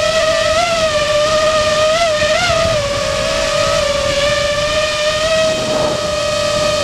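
Electric whine of an FPV freestyle quadcopter's four T-Motor F60 Pro II 2700KV brushless motors and propellers in flight, holding a steady pitch with a few quick rises as the throttle is blipped in the first half. Wind rushes on the microphone underneath.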